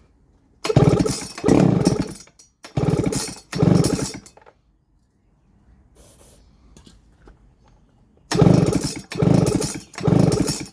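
Baumr-AG SX92 two-stroke chainsaw being pull-started: about seven quick recoil-starter pulls, two pairs and then a run of three near the end, the engine turning over without catching. The owner blames a fuel problem.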